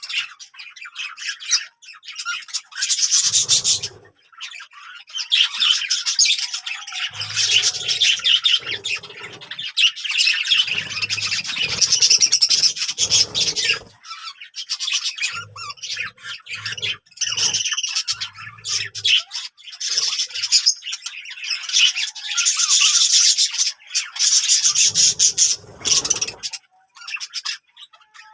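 A group of Australian parrots chattering and squawking in dense, rapid calls, with brief lulls. Short low rumbles come and go underneath.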